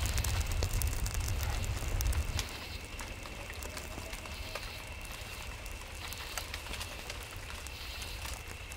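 Film ambience: scattered crackling clicks over a low rumble that drops away about two and a half seconds in, with a thin, steady high tone throughout.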